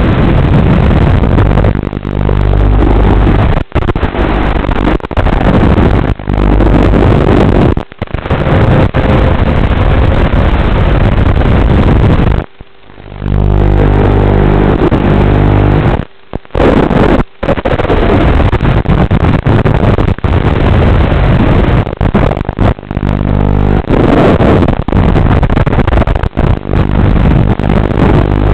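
Motors of a Leader 120 mini FPV quadcopter running on a 2S battery, a dense buzzing heard through a crackly, narrow analog audio feed. The sound cuts out briefly several times, longest about halfway through.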